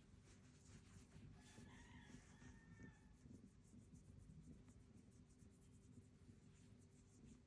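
Near silence: faint room tone, with a faint drawn-out call lasting about a second and a half, starting just over a second in.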